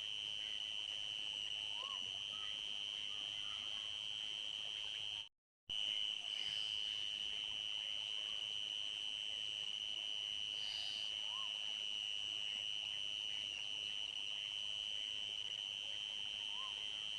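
A steady, high-pitched chorus of night insects, one continuous unbroken drone. A few faint short calls from another animal sound every few seconds. The sound cuts out completely for about half a second about five seconds in.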